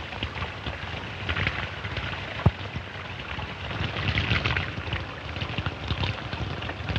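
Water splashing as men drink from a stream or pool, over the hiss and crackle of an old film soundtrack, with a single sharp pop about two and a half seconds in.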